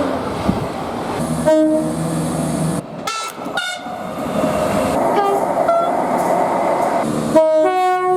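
Train horns sounding in a run of short edited clips. There is a blast about a second and a half in and brief toots around three seconds, then rolling train noise, and near the end a loud horn whose notes change partway through.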